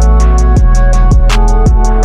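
Background music with a steady beat: a pounding kick drum, a ticking hi-hat and sustained pitched notes.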